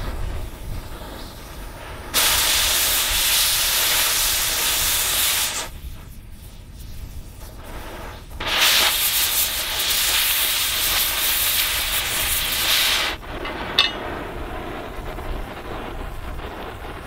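Oxy-acetylene cutting torch hissing in two loud blasts of about three and four seconds as the cutting oxygen melts through an aluminum AR-15 lower receiver, with the flame hissing more quietly in between. A single brief click near the end.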